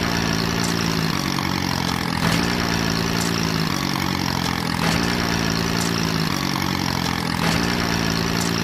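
Tractor engine idling steadily, its drone repeating in an even pattern about every second and a quarter.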